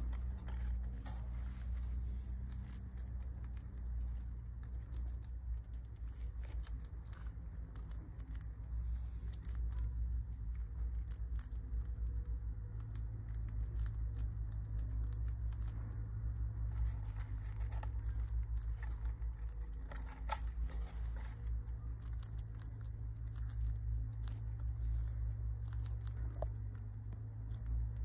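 Pet rats nibbling at treats and moving about the cage: many quick, crisp clicks and rustles over a steady low hum.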